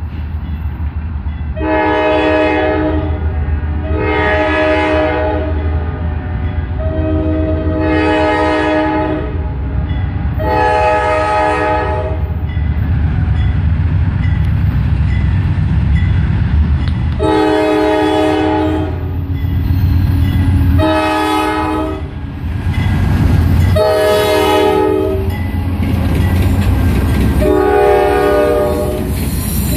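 Multi-chime air horn of a lead Norfolk Southern diesel locomotive blowing eight blasts of one to two seconds each, in two groups of four, the warning for a road grade crossing. The locomotives' diesel engines rumble steadily underneath as the train approaches and passes.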